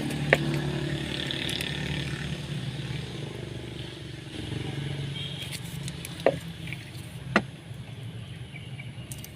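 A motor vehicle engine running in the background, slowly fading, with a few sharp clicks.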